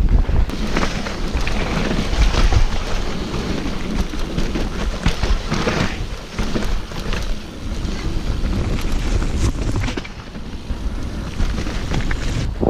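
Mountain bike riding fast down a rough trail: wind buffeting the action camera's microphone with a heavy rumble, over tyre noise on dirt and frequent clicks and knocks from the bike rattling over bumps.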